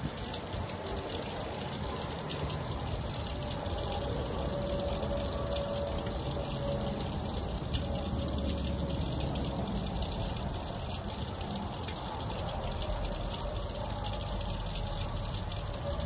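Frozen waterfall, with water still running steadily behind and under the ice.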